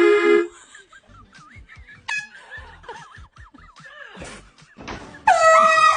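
Handheld air horn giving a short loud blast at the start. Voices and laughter follow. About five seconds in it sounds again, a loud steady blast that carries on, with a voice yelling over it.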